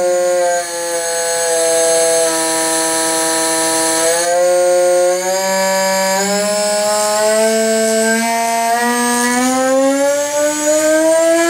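CNC router spindle running with a steady high whine whose pitch dips slightly at first, then climbs in stages through the second half as the spindle speed is turned up.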